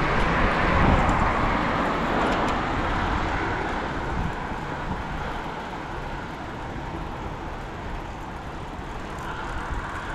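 A road vehicle passing: its tyre noise is loudest in the first two seconds and fades away over about four seconds, leaving a lower steady outdoor road noise.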